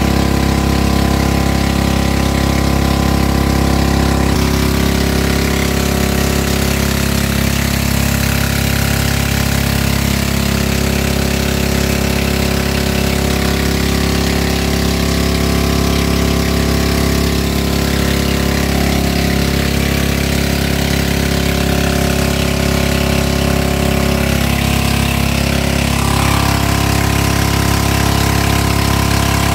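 Motorboat engine running steadily at a constant pitch while the boat tows a raft.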